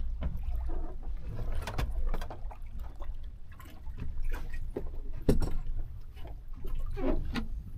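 Water lapping against the hull of a small open boat under a steady low rumble, with a few sharp knocks about two, five and seven seconds in.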